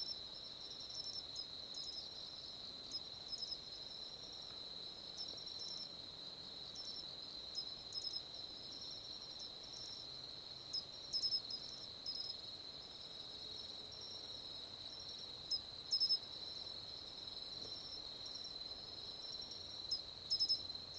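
Japanese pine cricket (matsumushi, Xenogryllus marmoratus) calling: short, clear, sharp chirps, often in quick pairs, repeated at irregular intervals. A steady high continuous trill runs underneath.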